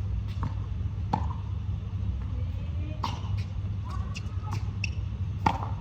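Tennis balls struck with a racket: a few sharp knocks, the loudest about a second in and near the end, over a steady low rumble, with faint voices between.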